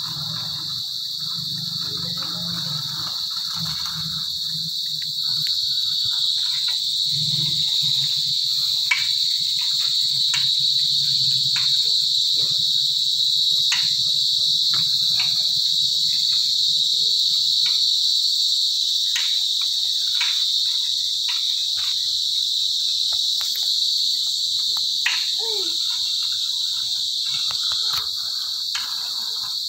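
Insect chorus: a steady high-pitched drone, a little louder from about five seconds in, with scattered light clicks over it.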